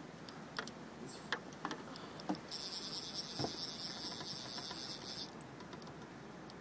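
Fly reel's click-and-pawl drag, with a few scattered clicks and then a steady high buzz for about three seconds as a hooked lingcod pulls line off the spool. The buzz starts and stops abruptly.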